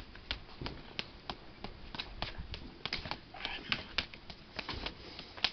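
Bare forearms striking against each other in a forearm-conditioning drill: a series of sharp slaps a fraction of a second to about half a second apart, the loudest near the end.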